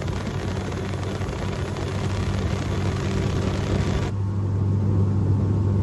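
An engine running steadily with a low hum. About four seconds in the high hiss cuts off suddenly and the low hum becomes louder.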